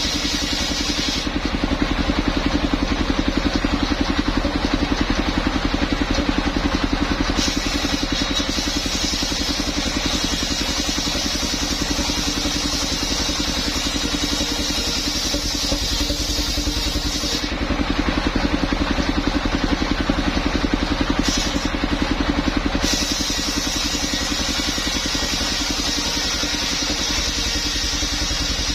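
Engine of a mobile circular-saw rig running steadily, with a fast even beat, while coconut trunk is sawn into rafters. A higher hiss comes and goes several times as cuts start and stop.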